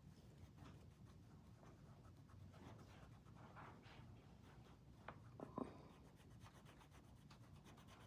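Faint crayon strokes scratching on a colouring-book page, with a couple of small soft knocks about five seconds in.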